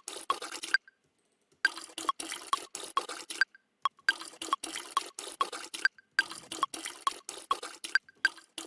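A recorded toilet sound, sliced and quantized to sixteenth notes in a DAW, playing back as a rapid watery dripping rhythm meant as a drum fill. It comes in phrases of about two seconds with short breaks between them.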